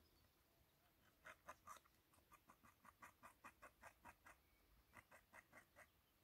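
Beaver gnawing on a peeled stick: a faint, quick run of crunching bites, about six a second, starting about a second in, with a short break near four and a half seconds.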